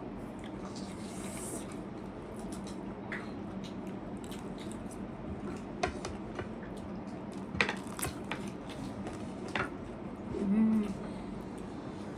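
Eating at a table: utensils tap and click against a plate a handful of times, with soft wet eating noises in between.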